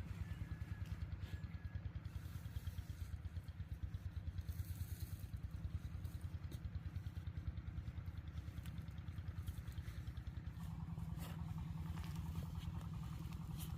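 A small engine running steadily with a fast, even pulse, growing a little louder about ten seconds in, with a few light clicks near the end.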